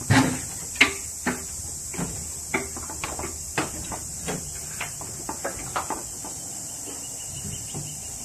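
A dozen or so irregular short clicks and knocks, loudest in the first second, over a steady high-pitched hiss.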